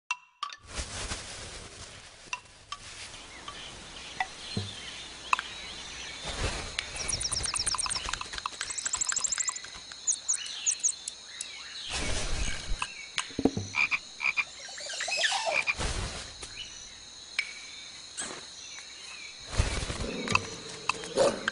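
Tissue paper rustling and crinkling, with short animal-like calls over it, including a rapid trill of evenly spaced clicks about seven to nine seconds in.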